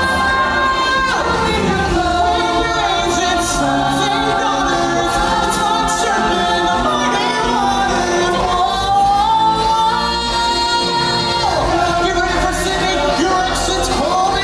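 Stage musical song: singers holding long notes that slide from one pitch to another, with choir-style backing voices over the band accompaniment.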